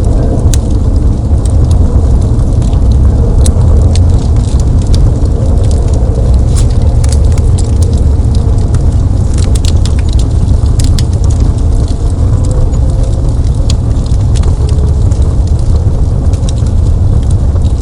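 Wood fire burning in a fireplace: a steady low rumble with frequent small crackles and pops.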